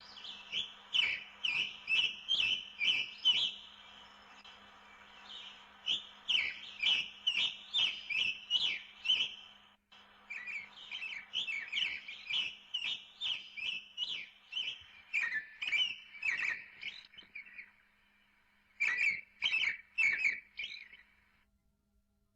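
A songbird chirping in rapid series of short, repeated notes, about two or three a second, in four bouts with brief pauses between them. It stops shortly before the end.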